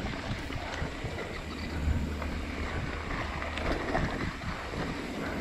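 Wind rushing over a GoPro action camera's microphone while it moves with the rider: a steady rushing noise with a low rumble.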